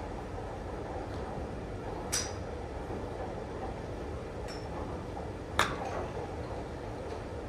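Golf club heads striking balls at a driving range: three sharp clicks, a faint one in the middle with a short high ring and the loudest about five and a half seconds in, over steady low background noise.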